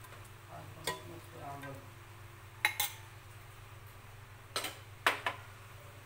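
Perforated metal skimmer knocking against the rim of an aluminium cooking pot as boiled whole masoor lentils are shaken off it: several sharp clinks, some in quick pairs.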